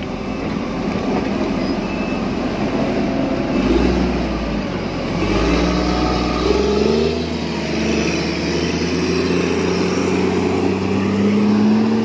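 JCB backhoe loader's diesel engine running hard as the machine works across muddy ground, its pitch climbing slowly through the second half as it revs up.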